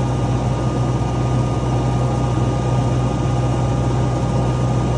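ASV RC60 compact track loader's diesel engine running steadily at raised throttle, driving a hydraulic cone-type stump grinder attachment that is boring down into a stump.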